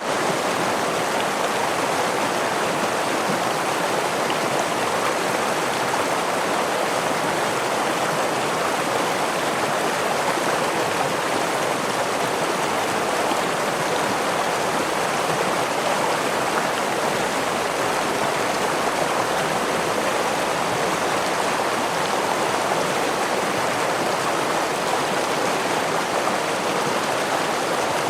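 A stream running over a small waterfall: a steady, even splashing of flowing water that holds the same level throughout.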